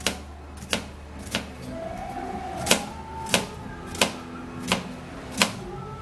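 Kitchen knife chopping a peeled unripe plantain into rounds on a plastic cutting board: a sharp knock as the blade hits the board, about one every two-thirds of a second, eight cuts with a short pause near two seconds in.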